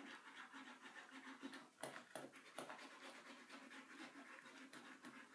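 Faint scratching of pens drawing on paper, with a few slightly louder short strokes about two seconds in.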